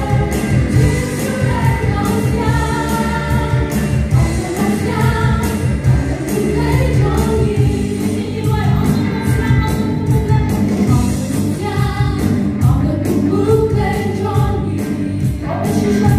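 A live gospel praise-and-worship song: several women singing together into microphones, backed by a band with drum kit, guitars and keyboard keeping a steady beat.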